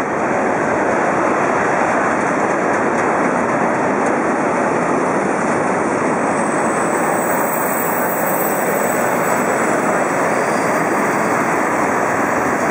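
Freight train wagons rolling past close by: a steady rolling noise of steel wheels on rails.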